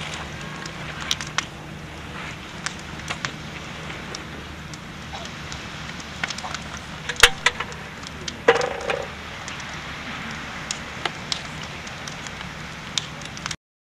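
Open fire crackling, with scattered sharp pops over a steady low hum. A strong crack comes about seven seconds in, and a louder pop with a brief ringing tone about a second later. The sound cuts off suddenly near the end.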